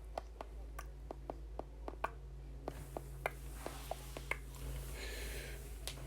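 Faint, irregular light clicks and taps, about three or four a second, over a steady low hum, with a short breathy hiss about five seconds in.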